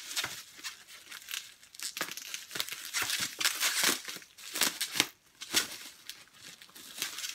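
Plastic bubble wrap crinkling and rustling as it is worked off a hardcover book by hand, in irregular crackles.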